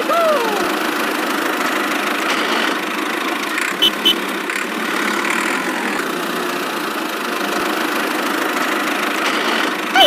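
Steady engine running sound, like a tractor idling, with two short clicks about four seconds in.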